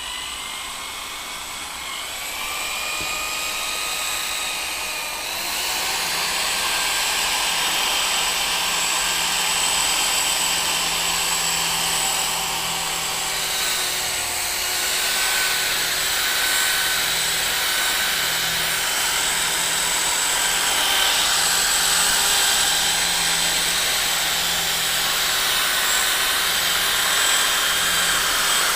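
Corded electric drill spinning a wool polishing pad on a plastic headlight lens, machine-polishing it with polish. The motor whine rises as it speeds up in the first couple of seconds, then runs steadily, louder from about six seconds in.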